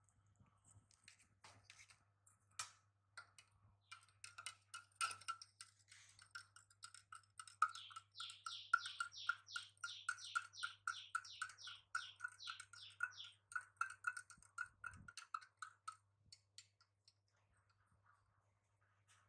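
A bird chirping: a quick run of sharp, falling chirps, about three or four a second, over several seconds in the middle, among faint clicks.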